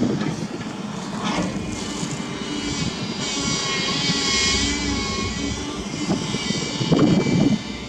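Heavy diesel machinery running: excavator and dump-truck engines, with a high whine that swells and fades again in the middle.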